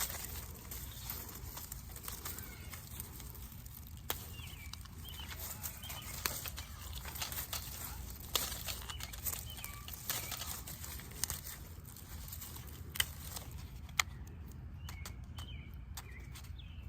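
Quiet outdoor background with faint, scattered bird chirps and a few sharp clicks.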